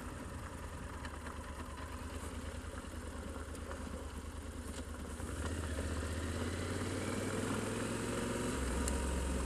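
Motorcycle engine running as the bike rides along a gravel track, with tyre and wind noise. About five seconds in the engine note rises and grows louder. Near the end it steps down to a lower, steady note.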